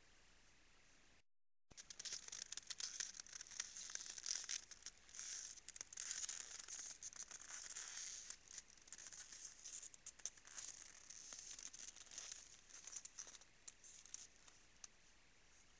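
Moose feeding at a salt lick in frozen snow: dense, irregular crisp crunching and crackling. It starts after a brief dropout about a second and a half in and dies away near the end.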